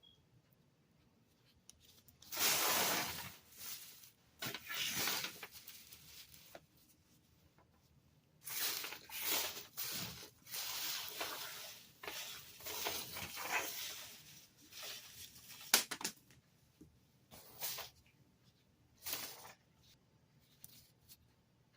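Cough drop packaging crinkling and tearing in irregular bursts, with one sharp click about sixteen seconds in.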